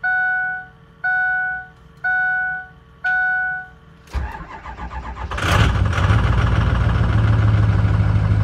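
The Ford Super Duty's door-ajar warning chime dings four times, about once a second. Then the starter cranks the 6.0 L Power Stroke V8 turbo-diesel for about a second and it fires and settles into a steady idle; the engine, running a freshly tuned FICM, seems to the owner to start faster.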